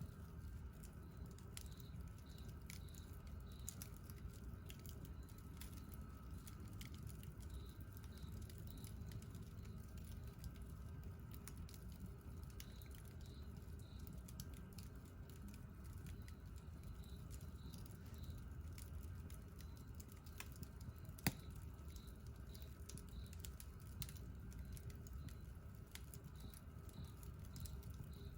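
Wood campfire burning with faint, irregular crackling and small pops over a low steady rumble, with one sharper pop about three quarters of the way through.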